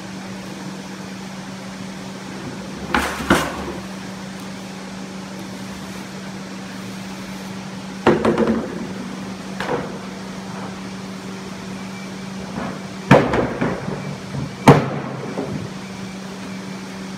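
Hard knocks and short clatters of a plastic pallet being handled and set down, several times, the loudest two about three-quarters of the way through, over a steady low machine hum.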